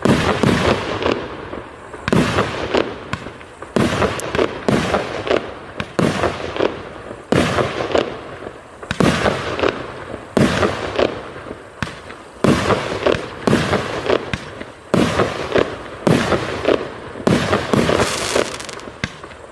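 A 50-shot consumer fireworks cake ("Freaky Lights") firing its shots in steady succession, roughly one to two sharp bangs a second, each fading briefly before the next.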